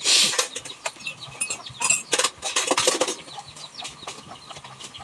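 Chickens clucking in the background, with a few loud noisy scrapes and clatters, the loudest right at the start and more about two to three seconds in.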